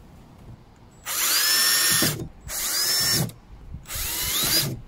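Cordless drill run in three short bursts, its motor whine rising and levelling off each time, as it drills into a plastic diesel heater fuel tank.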